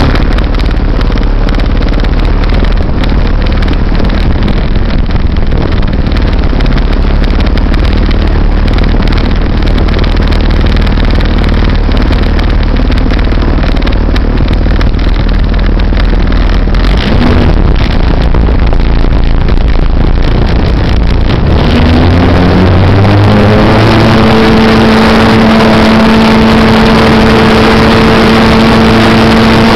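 Model airplane engine idling with a low, steady rumble, heard up close from a camera mounted on the plane. About 22 seconds in it opens up, its pitch rising over a couple of seconds to a steady high-throttle run for the takeoff roll.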